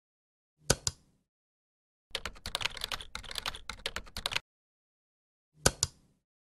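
Computer keyboard typing: a quick run of keystrokes lasting about two seconds. It is framed by a pair of sharp clicks about half a second in and another pair near the end.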